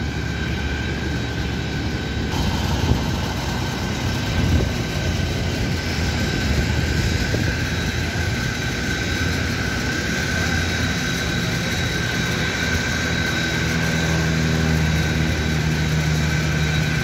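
Airport ramp noise: a steady engine drone with a thin high whine. In the last few seconds the engine of a light propeller plane flying overhead comes in over it.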